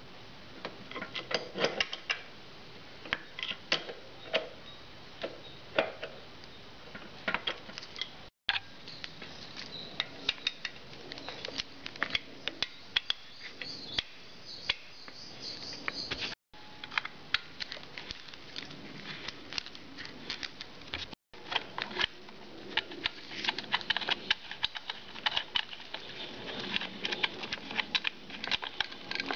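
Irregular metallic clicks and knocks of hand tools working the spring-loaded fork top cap nut on a 1994 Harley-Davidson Evolution Sportster, along with the handling of a rag over the cap. The sound drops out abruptly for an instant three times.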